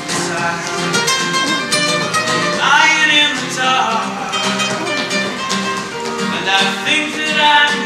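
Live flamenco-style music: a nylon-string guitar played with rhythmic hand clapping and a man's voice singing the melody.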